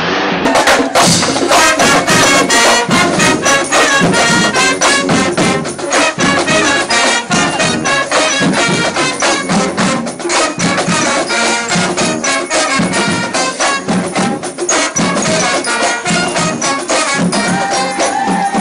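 Brass band music: horns playing a tune over drums and percussion that keep a steady beat.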